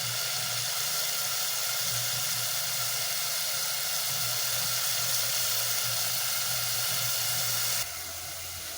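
A pot of beef and potatoes in spiced broth sizzling and hissing steadily on the stove, dropping in level near the end.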